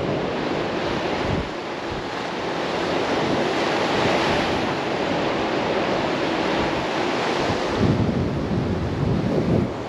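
Sea surf washing steadily, with wind buffeting the microphone in low rumbling gusts.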